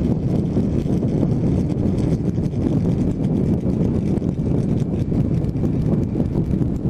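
Heavy wind buffeting on a helmet-mounted GoPro's microphone as a motorcycle rides at road speed: a steady, loud low rumble with no let-up.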